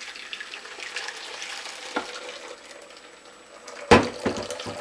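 Freshly blended coconut milk pouring from a blender jug through a wire-mesh strainer into a mixing bowl, a steady trickling splash. There is a single click about two seconds in and a short cluster of loud knocks near the end.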